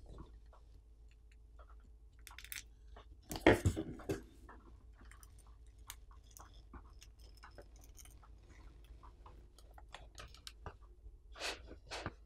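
Plastic pry pick working under the edge of a tablet's glued-down screen, with scattered small clicks and crackles as the heat-softened adhesive lets go. A louder crunch comes about three and a half seconds in, and another near the end.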